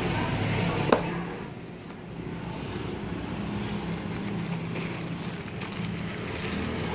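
Steady low motor hum, with one sharp click about a second in.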